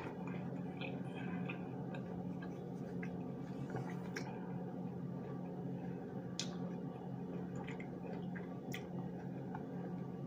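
Metal spoon scraping and clicking now and then against a plastic cup of cottage cheese and fruit, with soft chewing, over a steady low hum.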